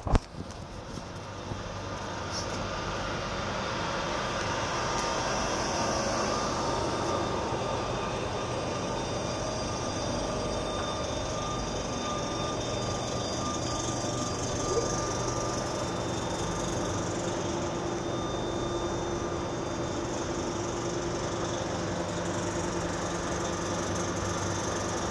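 Alstom TGV Duplex high-speed train standing at the platform, its onboard equipment giving a steady hum with a few held whining tones. The hum builds over the first few seconds and then stays level.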